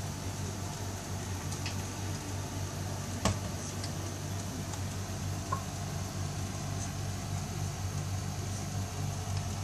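Steady low hum and hiss of room noise, with one sharp click about three seconds in and a faint tick a couple of seconds later as the headset is lifted off its stand and handled.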